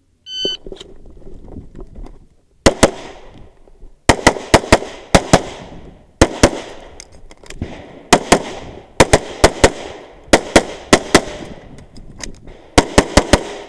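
A shot timer beeps once, briefly, about half a second in. From a little over two seconds in, a 9mm SIG P320 pistol fires rapidly, mostly in quick pairs with short gaps between groups while the shooter moves, with a burst of several fast shots near the end.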